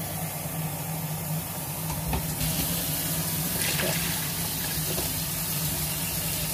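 Water being poured into a pot of boiling peas and masala broth, the pouring growing louder about two and a half seconds in, over the bubbling of the boil and a steady low hum.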